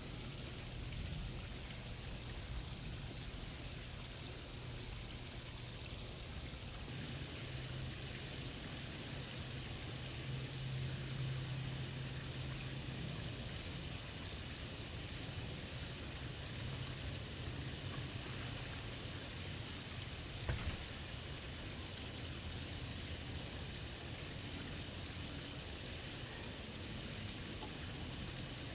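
Steady outdoor background hiss. About seven seconds in it grows a little louder, and a thin, steady high-pitched tone joins it.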